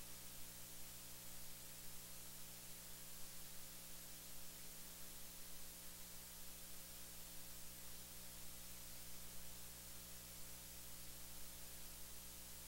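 Faint, steady hiss with a low electrical hum underneath: the recording's noise floor, with no other sound rising out of it.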